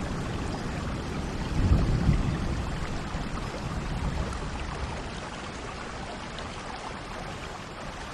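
Steady rain. A low rumble of thunder swells about two seconds in, then dies away, leaving an even rain hiss.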